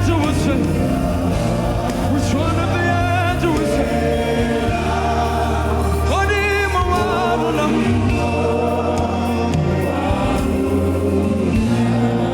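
Gospel worship music: singing with a wavering vibrato over a steady bass line.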